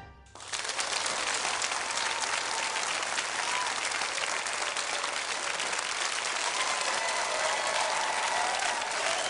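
An audience applauding, starting just after a brief gap, with a few cheers rising over the clapping.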